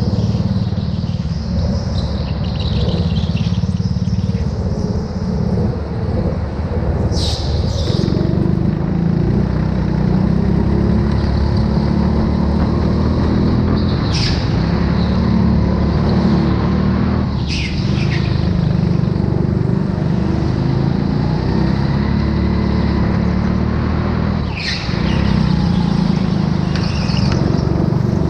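Go-kart heard from the driver's seat at racing speed: a steady low rumble of the kart running over the track, with brief high tyre squeals several times as it slides through corners.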